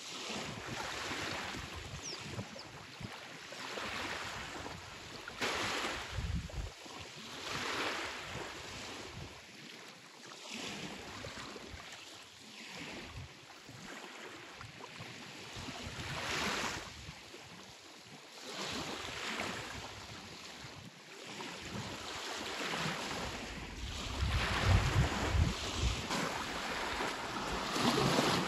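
Small sea waves washing onto a shingle beach, one swell every two to three seconds. Louder splashing and a low rumble near the end, as someone runs through the shallows.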